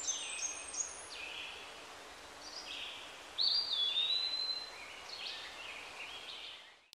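Birds chirping: many short notes falling in pitch, repeated in quick runs, with one longer, louder whistle about three and a half seconds in, over a faint steady hiss.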